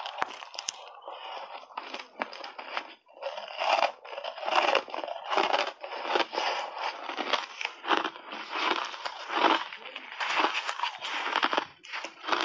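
Ice chunks coated in matcha tea powder being bitten and crunched between the teeth, a dense run of irregular crisp crunches and crackles as the ice is chewed.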